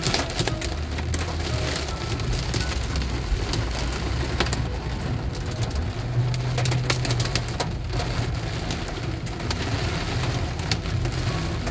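Heavy rain beating on a car's roof and windshield, heard from inside the cabin as a dense patter of sharp ticks over a low rumble from the car.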